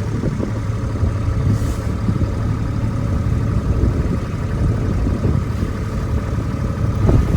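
Farm vehicle's engine running steadily, a continuous low rumble.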